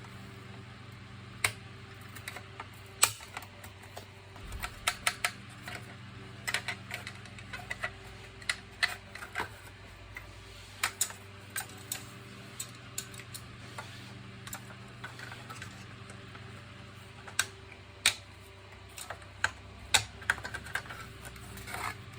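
Irregular sharp clicks and clacks of plastic vacuum cleaner parts and tools being handled during disassembly or reassembly, some in quick clusters, over a steady low hum.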